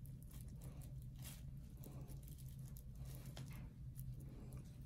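Faint clicks and tearing sounds from steel nail nippers working an ingrown toenail free where it is stuck to the skin, over a steady low hum.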